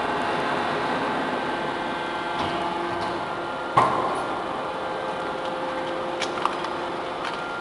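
Hydraulic double-ram metal baler running with a steady machine hum. A loud, sharp clank with a short ring comes a little under four seconds in, and a couple of smaller clicks follow near the end.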